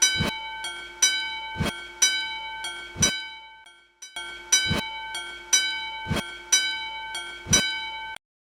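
Japanese railway level-crossing warning bell sounding its 'kan-kan' dings, a pitched strike repeating roughly every second or less and ringing on between strikes. It runs in two stretches of about four seconds, breaking off briefly near the middle.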